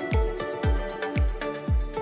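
Background music with a steady electronic beat, about two deep kick-drum hits a second under sustained synth notes.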